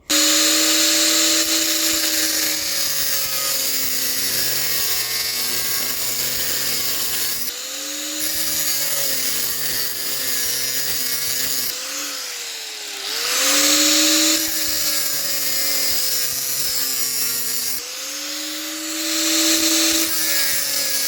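Angle grinder running and cutting into the steel of an outer CV joint. The motor note sags several times as the disc bites in, and the high cutting hiss swells about two thirds of the way through and again near the end.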